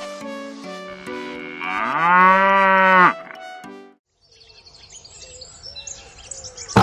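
A cow mooing once, a long call that rises and then holds for about a second and a half, over light background music. After a short gap there is faint background noise with small chirps, and a sharp knock at the very end.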